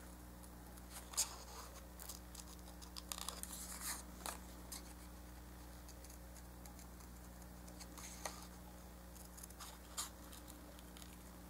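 Small scissors snipping paper: a few faint, scattered snips with a cluster of them about three to four seconds in, over a low steady hum.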